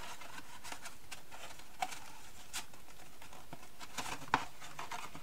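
Cardstock being handled and pressed together by hand: light rustling with scattered small clicks and taps, a few sharper ones near the end.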